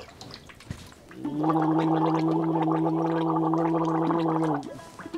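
A person gargling, the sound held on one steady pitch for about three and a half seconds, starting a little over a second in and stopping abruptly. It is a gargle to soothe a sore throat.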